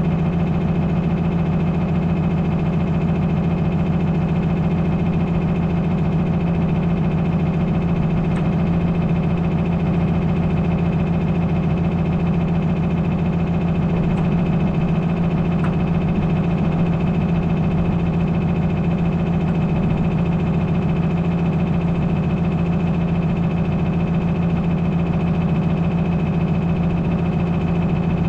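A farm vehicle's engine running steadily at a constant speed: an even, unchanging drone with no revving.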